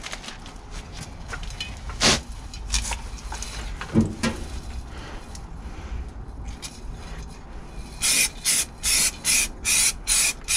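Aerosol can of stone chip paint spraying in a run of short hissing bursts, about two a second, starting about eight seconds in. Before that, rubbing and handling noises with a couple of sharp knocks.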